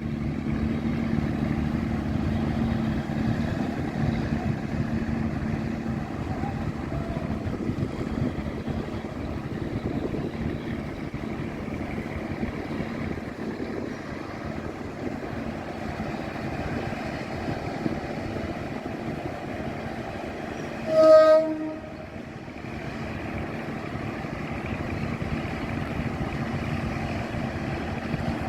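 KiHa 183 diesel railcar running steadily, with constant engine and rail noise, and one short horn blast about three-quarters of the way through.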